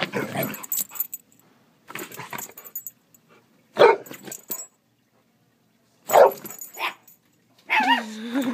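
Golden retriever barking in short separate bursts, the two loudest about four and six seconds in, then a wavering whine near the end: it is warning off a new puppy.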